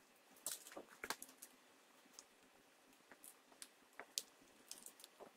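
Faint, irregular light clicks and taps from parts of a power steering rack being handled by hand.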